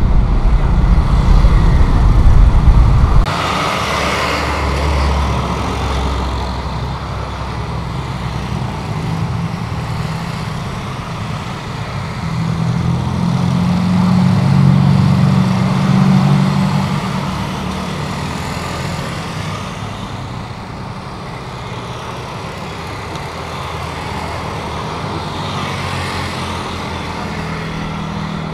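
Jet airliner engine noise at an airport: a loud low rumble that stops abruptly at an edit about three seconds in, then a different jet's engine noise with a low hum that swells to a peak about halfway through and fades away.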